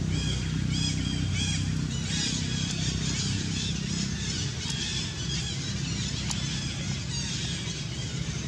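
Repeated short, high-pitched chirping calls, several a second, over a steady low rumble.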